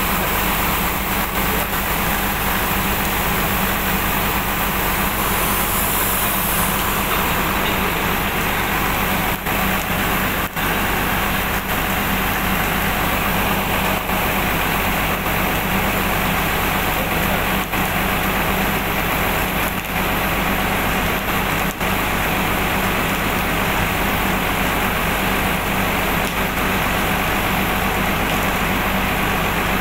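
Steady machine drone with a low hum and an even hiss, running without a break.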